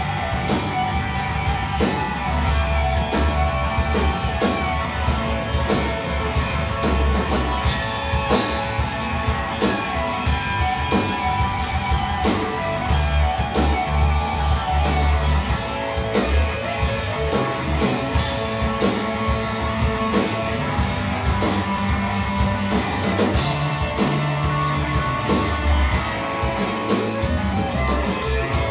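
Live rock band playing, with electric guitar lead over bass guitar and drum kit, with steady drum beats throughout.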